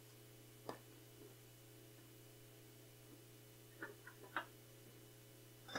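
Near silence: room tone with a steady low hum, broken by a few faint short sounds, a small cluster of them about four seconds in and one more near the end.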